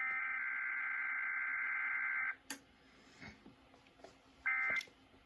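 Emergency Alert System SAME data bursts from a required weekly test broadcast on WTOP radio: a harsh digital data tone lasting a little over two seconds, then after a pause two short bursts about a second apart, the pattern of the end-of-message code.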